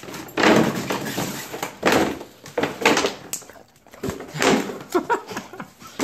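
Clear plastic tube knocking and scraping on a hardwood floor as a dog noses and shoves it around to get treats out, in about four loud bursts of clattering with sharp knocks between.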